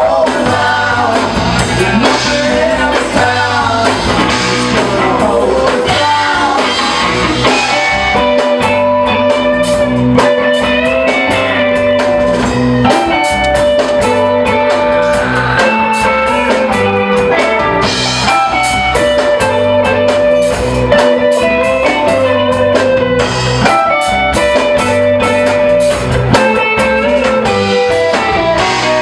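Live rock band playing, with guitar and drum kit prominent over a steady bass line.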